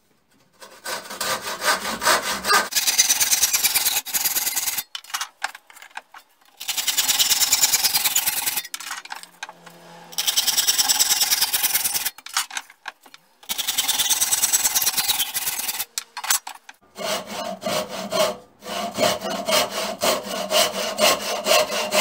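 Hand saw cutting through wood in quick back-and-forth strokes, in several runs broken by short pauses.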